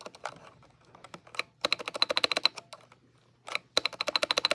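Space bar of a Womier WK61 mechanical keyboard being pressed in two quick runs of rapid clicks, after a few lighter clicks. The freshly refitted space bar is being checked for rattle, and the owner finds it not rattly.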